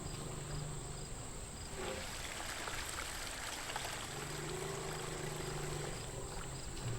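Insects chirping steadily over water splashing and trickling at a waterhole, with a low hum coming and going.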